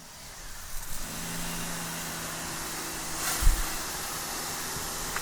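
Electric pressure washer's motor and pump coming up to full run about a second in, then a steady hum under the hiss of a 40-degree fan spray hitting concrete. A single loud thump about three and a half seconds in.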